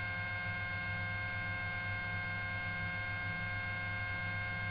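Steady electrical hum with several faint, steady whining tones on the patrol helicopter's intercom audio feed while no one is transmitting.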